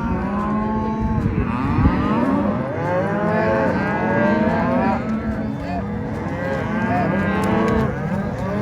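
A herd of beef cattle mooing, many cows and calves calling over one another continuously, with deep calls and higher-pitched ones overlapping.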